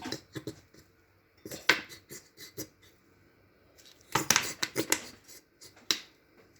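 Short clicks, knocks and scrapes of a measuring cup and kitchen utensils in three brief clusters, as red palm oil is measured out a half cup at a time.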